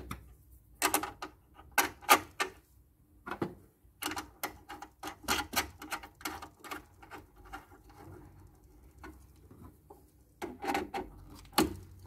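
Irregular small metallic clicks and taps of a cable lug, washer and nut being fitted onto a distribution busbar bolt and tightened, with the clicks coming thickest about four to seven seconds in.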